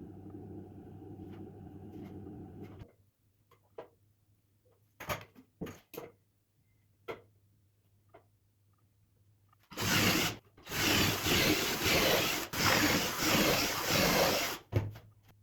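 A steady machine hum stops about three seconds in, followed by several sharp wooden knocks. From about ten seconds in, wood is worked with loud rubbing or scraping strokes, each a second or more long with brief breaks between.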